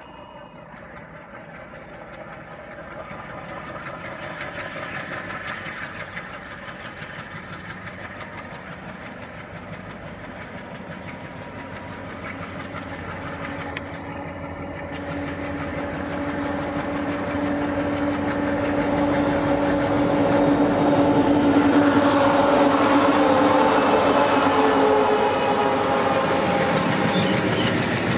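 Twin WDM3A diesel locomotives, with ALCO 251 sixteen-cylinder engines, running under power as they approach. The engine sound holds a few steady tones and grows louder over about twenty seconds, peaking as the locomotives draw close.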